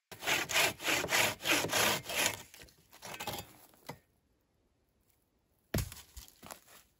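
Wood rasping against wood in rapid repeated strokes, about four to five a second, for two seconds, then fainter scraping. Near the end, a single heavy wooden knock, followed by a few lighter knocks.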